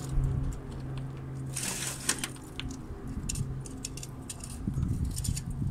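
Scattered clinks, scrapes and rattles of burnt debris and metal as someone rummages by hand inside a fire-gutted truck cab, over a low steady hum that fades out about halfway.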